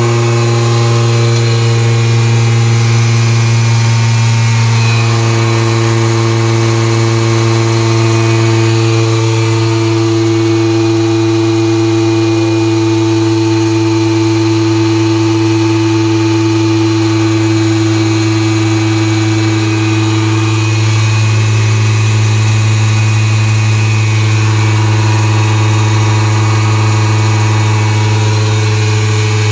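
Two portable 2-gallon air compressors, a Craftsman and a Harbor Freight Fortress ultra-quiet, running together to fill their tanks toward 90 psi. Their motors make a loud, steady drone.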